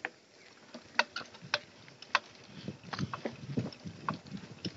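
Mountain bike rattling over a bumpy grass trail: irregular sharp clicks and knocks from the bike, with a low rolling rumble that builds from about halfway.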